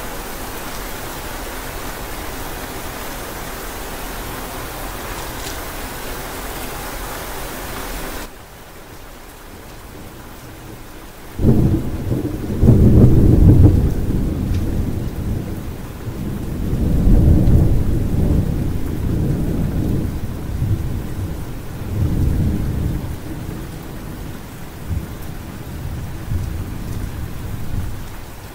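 Steady rain hiss that cuts off abruptly to a quieter rain bed about eight seconds in. A few seconds later a loud thunderclap breaks in and rolls on in several low rumbling waves, fading toward the end.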